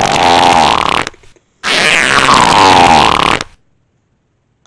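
Two long, loud fart noises for a baby pooping in its diaper. The first ends about a second in and the second lasts about two seconds, both with a wavering pitch.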